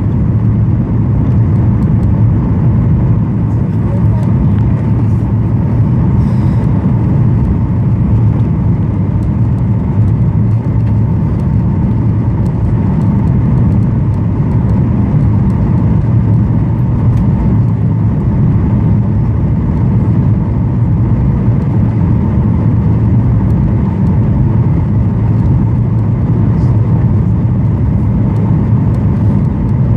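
Steady cabin noise inside a Boeing 737-900 in flight: the rumble of its CFM56 turbofan engines and the airflow past the fuselage, heaviest in the low range with a faint steady hum above it and no change in level.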